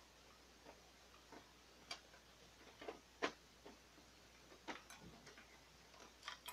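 Scattered light clicks and taps of plastic parts as the paper-feed assembly of a disassembled Canon PIXMA MG3510 inkjet printer is handled and fitted into its chassis, with the sharpest click a little over three seconds in.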